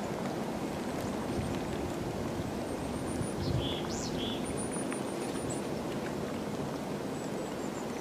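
Steady low outdoor background rumble, with a few faint, thin, high-pitched calls of small birds about three to five seconds in.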